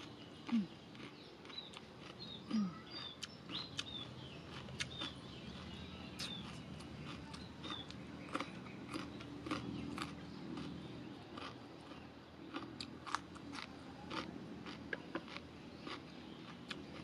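A person chewing food close to the microphone, with many short, sharp crunches scattered irregularly throughout.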